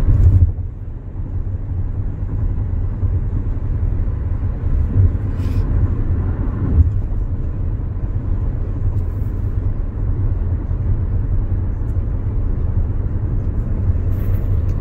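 Steady low rumble of road and tyre noise heard inside a Hyundai SUV's cabin while it cruises at freeway speed, with a brief louder bump right at the start.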